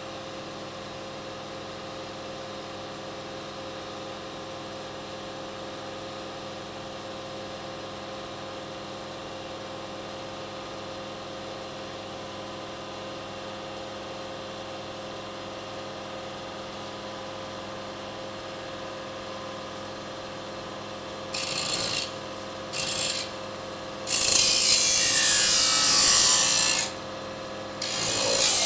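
Power disk saw cutting aluminium: the motor runs with a steady hum, then about twenty seconds in the blade bites the metal in loud bursts, two short cuts and then a longer cut of nearly three seconds with a whine that falls in pitch, and another cut starts near the end.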